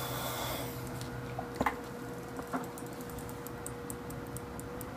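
Hands handling and twisting thin motor wires on a carbon-fibre quadcopter frame: a brief rustle, two light knocks, then a run of faint small ticks, over a steady faint hum.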